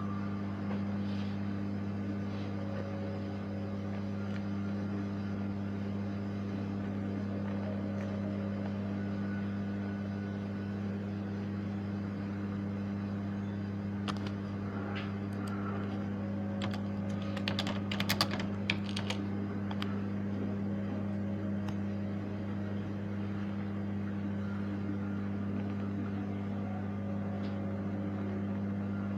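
Steady low electrical hum with a cluster of light clicks or taps a little past halfway through.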